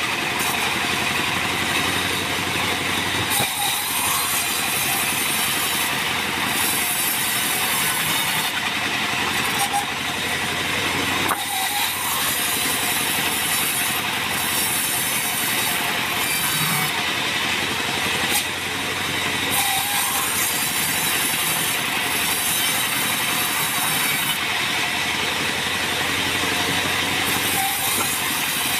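Bandsaw mill running and cutting through an acacia log: a steady, dense rasping saw noise with a few brief dips.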